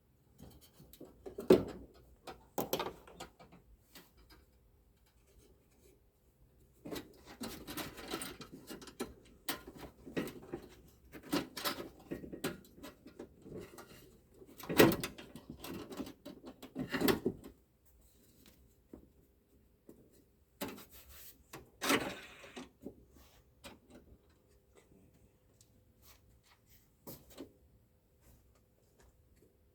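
Scattered clicks, knocks and rattles of parts being handled while a Chevrolet Blazer tailgate is put back together, with sharp knocks about a second and a half in and again around the middle.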